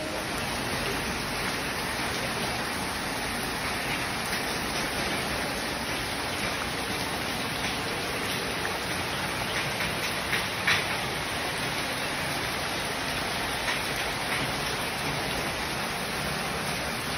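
Steady hiss of heavy rain, with a couple of sharper taps about ten seconds in.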